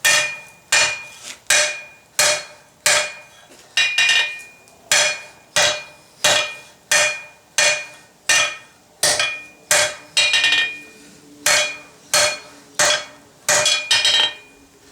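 Hand hammer forging hot steel down on an anvil: steady blows about every 0.7 s, a few in quick pairs, each with a short metallic ring.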